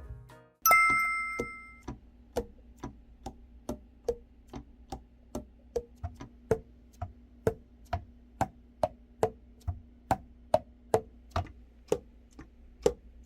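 A short bell-like chime, then steady, even ticking at about two ticks a second, like a clock.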